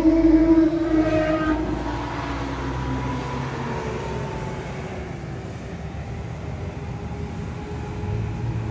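Gordon Murray T.50's naturally aspirated 3.9-litre Cosworth V12 passing at speed, its note dropping in pitch and fading as the car goes by. Near the end the engine grows louder again.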